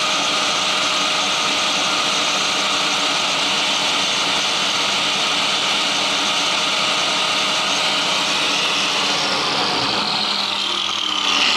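An angle grinder clamped to a lathe's tool post runs steadily, its disc grinding down the protruding edges of flat magnets glued onto an electric motor rotor that turns in the lathe chuck, with the lathe running underneath. Near the end the grinder's whine falls in pitch as it spins down, while the lathe keeps turning.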